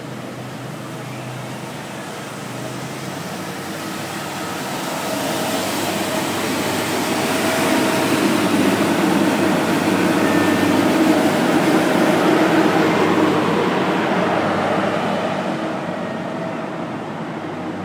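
Street sweeper running along the curb with its side gutter broom spinning. Its engine and brushes grow louder as it passes close, loudest in the middle, then fade as it moves away.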